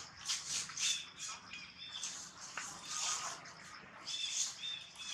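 Short high chirping calls over the rustle of dry leaves being stirred, coming in repeated brief bursts.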